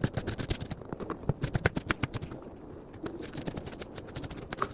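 Rapid, irregular clicking and tapping of kitchen prep work, several sharp clicks a second, as butter and an onion are handled on the counter.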